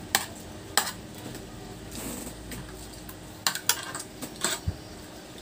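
Spoon and fork clinking and scraping against stainless steel divided meal trays while eating: a few sharp, scattered clinks, two in quick succession about three and a half seconds in.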